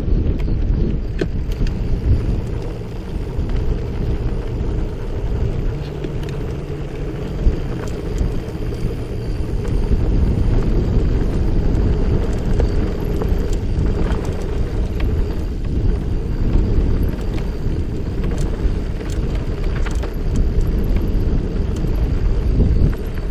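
Wind rushing over the microphone and the rumble of a mountain bike's tyres rolling fast down a dirt singletrack. Scattered small clicks and rattles from the bike run through it.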